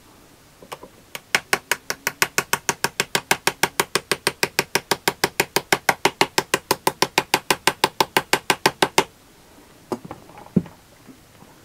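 Rapid, even clicking of a ratcheting hand tool turning bolts on a differential carrier, about six or seven clicks a second for some eight seconds, then stopping; a couple of light knocks of tools set down on the bench near the end.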